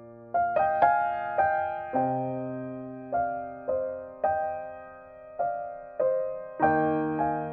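Background piano music: slow, gentle melody of single struck notes that ring and fade, with deeper notes added twice.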